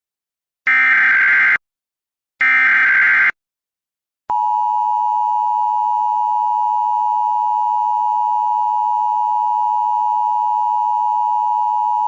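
Emergency Alert System SAME header: two screeching data bursts of about a second each, then the steady two-tone EAS attention signal sounding for about eight seconds, the start of a broadcast Required Monthly Test alert.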